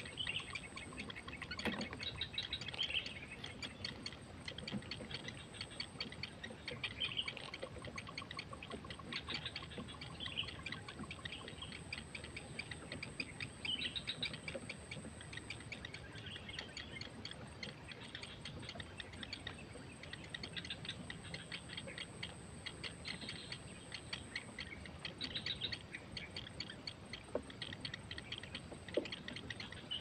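Heron chicks begging in the nest: short chirping calls that come every second or two over a dense, fast ticking. A thin, steady high whine comes and goes behind them.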